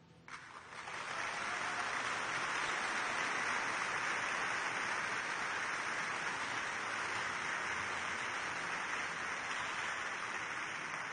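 Audience applauding: the clapping breaks out a moment in, swells within a second and holds steady.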